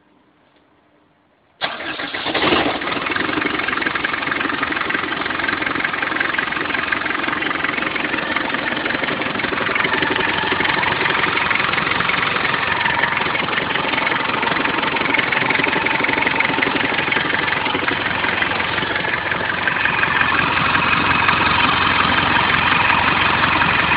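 Land Rover Defender 90 turbo-diesel engine starting: quiet for about the first second and a half, then it fires abruptly and settles into a steady idle.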